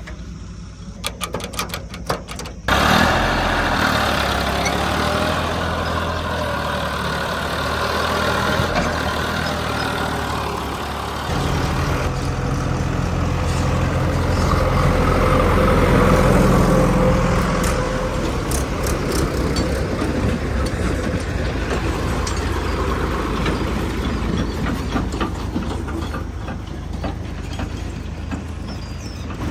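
Heavy machinery's diesel engine running under varying load. A few sharp clicks come first, then the engine sound jumps suddenly louder about three seconds in. Its pitch shifts about eleven seconds in and swells briefly a few seconds later.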